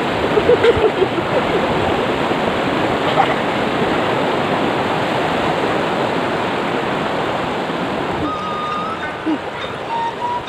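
Steady rushing of a river, easing slightly near the end.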